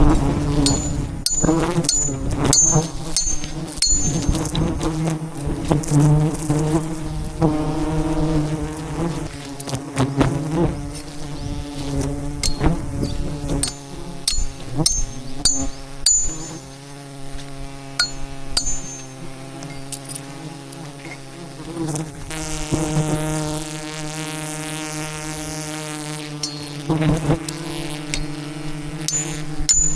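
A dense swarm of wild bees buzzing around their hive: a loud, steady, low drone that wavers in pitch. Short sharp clicks come in quick clusters near the start, in the middle and near the end.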